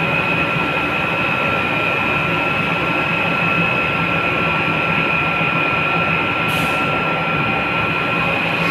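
Sugar factory centrifugal station running: batch centrifugal machines and the sugar conveyor give a loud, steady machine drone with a high whine held at a constant pitch. A short hiss cuts in about six and a half seconds in.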